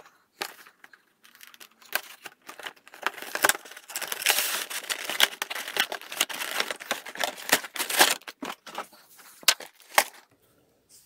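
A cardboard toy box being cut and pulled open with a small knife: a busy run of scraping, tearing and crinkling of cardboard and plastic wrapping, with many sharp clicks.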